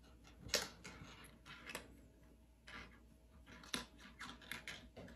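Kittens pawing and biting at a plastic coil-spring toy on a wooden floor: irregular light clicks and scrapes, about ten in all.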